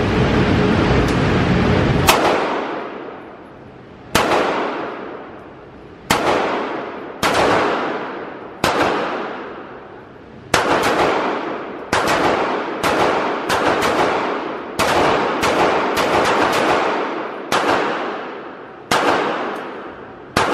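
Pistol shots at an indoor shooting range, about fifteen in all, one every second or two, each sharp crack followed by a long echoing tail off the range's walls. A steady low rumble runs underneath until the first shot, about two seconds in.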